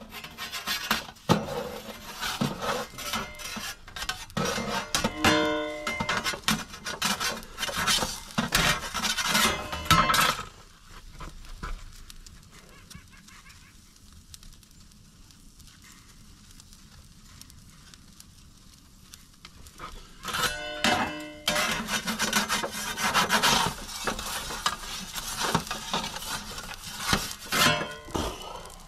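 Scraping and clinking of a metal pizza peel on the oven's baking stone and deck, over acoustic guitar music. A quieter stretch of about ten seconds comes in the middle.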